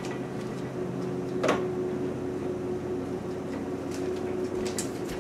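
A steady low hum of a few fixed tones, like a running appliance or fan, with a couple of faint clicks, one about a second and a half in.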